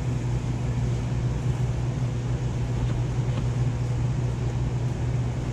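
Steady low mechanical hum, with a couple of faint ticks about three seconds in.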